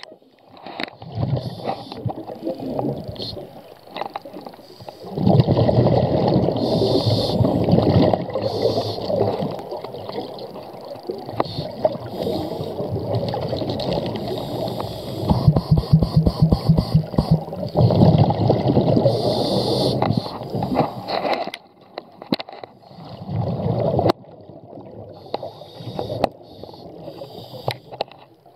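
Underwater scuba breathing: a diver's regulator exhaling bubbles in gurgling swells of a few seconds, with quieter gaps between breaths and scattered light clicks.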